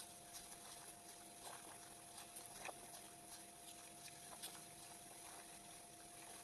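Near silence: faint outdoor background with a steady low-level hum and a few soft ticks.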